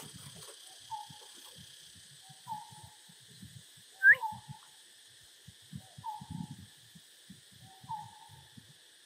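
Short hoot-like animal calls repeating, four of them about every one and a half to two seconds, with one louder, sharply rising call about four seconds in. A steady high hiss sits underneath.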